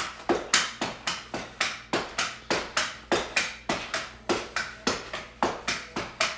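Pogo stick bouncing: a steady run of sharp thumps, about four a second.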